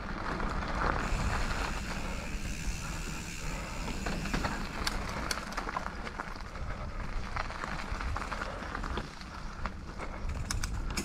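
Mountain bike being ridden over trail: a steady rumble of tyres on the ground, with scattered rattles and clicks from the bike.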